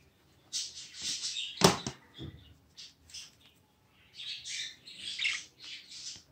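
Agitated budgerigar giving harsh, raspy squawks in two spells, with a sharp knock about a second and a half in.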